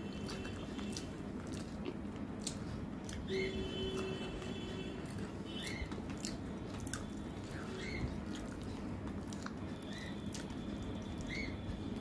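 Eating with the fingers from a stainless steel plate: soft chewing and scattered clicks as the fingers scrape rice and curry off the plate. A short high chirp repeats every second or two.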